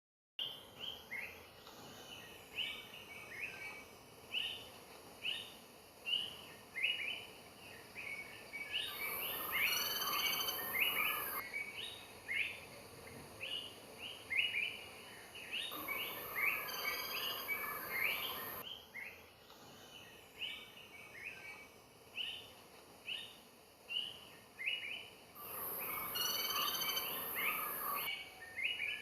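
Greater flameback woodpecker calling: a long run of short, sharp notes, broken three times by louder, harsh bursts lasting two to three seconds each.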